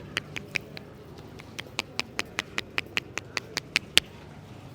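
A barber's hands tapping and slapping the head in a fast, even rhythm of sharp claps, about five a second. The claps come in two runs with a short pause about a second in, and the last clap near the end is the loudest.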